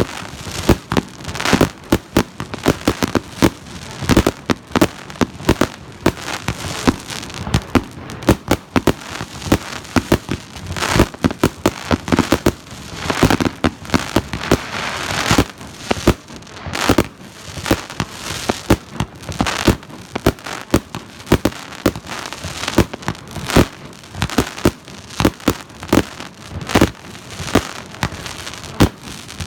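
A 100-shot double-shot fireworks cake firing: a dense, continuous run of sharp launch and burst reports, several a second.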